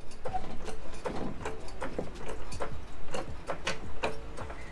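Hydraulic jack being pumped under the front suspension, a run of uneven mechanical clicks and creaks about three to four a second, as it lifts the strut up into its new upper strut mount.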